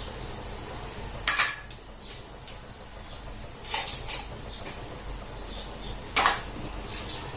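Kitchen utensils clinking and knocking: a sharp metallic clink with a brief ring about a second in, a couple of softer knocks around four seconds, and another sharp knock near six seconds.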